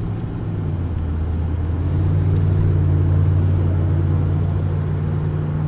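Low, steady hum and rumble of a hybrid car heard from inside the cabin while it speeds up from about 17 to 26 mph. The hum steps up in pitch and grows louder about two seconds in.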